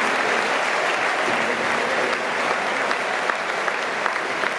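Large stadium crowd applauding, a steady wash of many hands clapping with a few nearer, sharper claps standing out.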